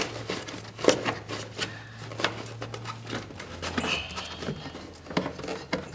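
Hands working a stuck cabin air filter out of its plastic housing: scattered clicks, scrapes and rubbing of the filter frame against the plastic.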